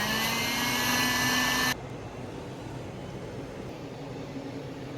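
Packing tape pulled off a roll, a hissing screech whose pitch rises slightly and that cuts off abruptly after about two seconds.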